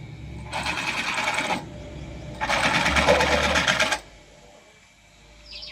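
Pneumatic impact wrench hammering in two bursts, the second longer, as nuts or bolts are undone.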